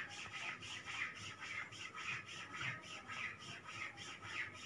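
A hand rubbing briskly back and forth over a cloth sheet on a person's lower back, a rhythmic swish of palm on fabric at about four to five strokes a second. This is the neurotherapy friction rub ('ghisai') over the L3–L5 lumbar spine.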